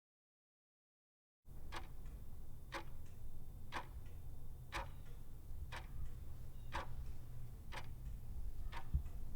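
Sharp, evenly spaced ticks, about one a second, over a low steady hum, beginning after a second and a half of dead silence.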